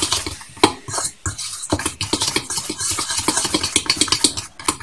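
A utensil stirring dry ingredients (flour and cocoa) in a mixing bowl: quick, repeated scraping and clicking against the bowl's sides.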